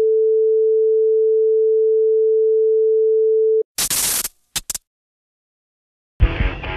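A steady pure test tone, one unchanging pitch, under colour bars for about three and a half seconds. It cuts off, followed by a few short bursts of white-noise static, a brief silence, and cumbia music starting near the end.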